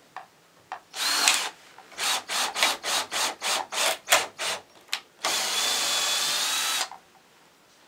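Cordless drill running into pallet wood. It gives one short burst, then about a dozen quick trigger pulses, then one steady run of about a second and a half with a level whine.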